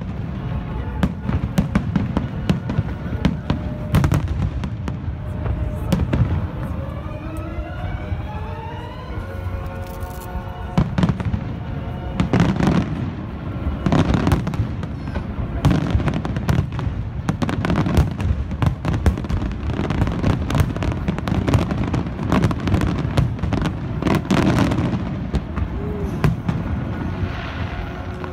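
Fireworks display: aerial shells bursting in quick succession, a dense run of cracks and booms with crackling, over the show's music soundtrack.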